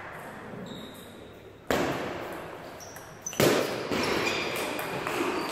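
Table tennis ball clicking off bats and table in a rally, with two loud knocks that ring on in the hall, about two seconds in and again a second and a half later.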